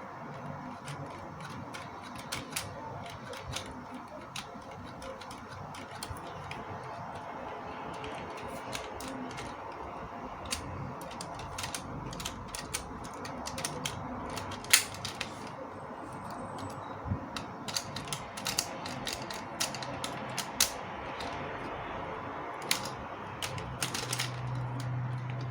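Plastic LEGO Technic parts clicking and ratcheting: a long run of irregular sharp clicks, with one louder snap about fifteen seconds in.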